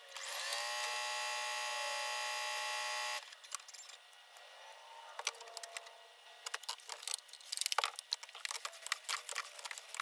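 Sped-up audio of a Pfaff Performance Icon computerized sewing machine's motor, which spins up to a steady high whine for about three seconds and then stops abruptly. It is followed by a dense crackling and rustling of clear plastic stretch wrap being pulled around the machine.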